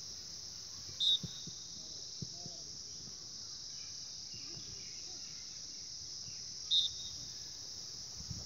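Steady, high-pitched drone of insects, with two short high peeps cutting through it, one about a second in and one near the end.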